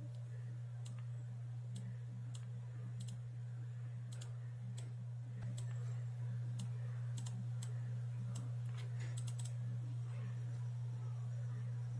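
Scattered sharp clicks from a computer keyboard and mouse, some in quick little runs, over a steady low hum that grows slightly louder about halfway through.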